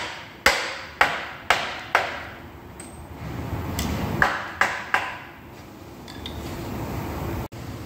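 Hammer blows on the cast housing of a three-phase electric motor, each strike ringing briefly: four evenly spaced hits about half a second apart, then after a pause three quicker ones. The motor's end bell is being knocked loose to take it apart.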